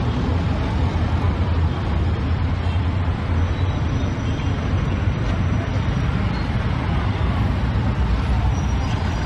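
Busy street traffic: motorbikes, motor tricycles and cars running and passing close by, with a steady low rumble.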